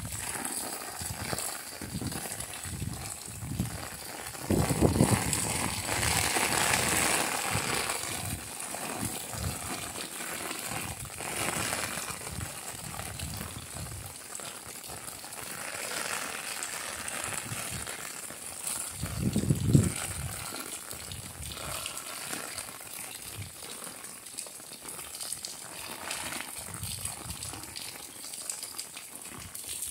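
Rain falling on a car's windshield and roof, heard from inside the cabin as a steady wash of drops, with a louder low rumble twice.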